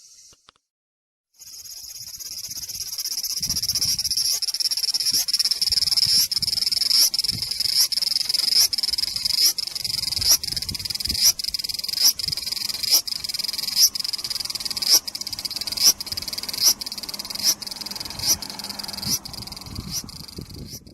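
Cicada singing: a loud, continuous high-pitched buzz that builds up after a short break about a second in, then pulses with regular swells a little more than once a second.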